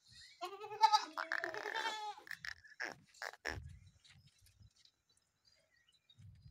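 Makhi Cheeni goat kid bleating once, a wavering cry of about a second and a half, followed by a few short clicks.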